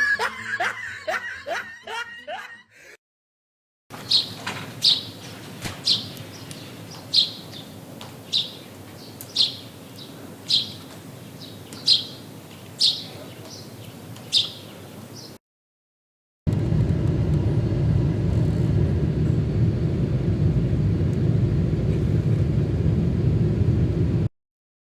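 A run of separate sound effects. First about ten short, high chirps, roughly one a second, over a faint hiss. Then, after a pause, a steady low rumble that cuts off suddenly.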